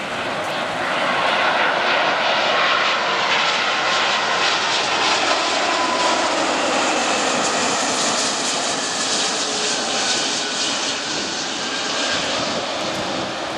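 Airbus A340-500's four Rolls-Royce Trent 500 turbofans at approach power as the airliner flies low past on final approach to land: a loud, steady jet rush with a faint whine in it. It swells about a second in and eases slightly near the end.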